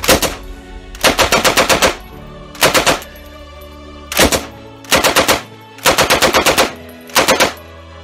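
Machine-gun fire sound effect: about seven short bursts of rapid automatic fire, the longest a little under a second, over background music.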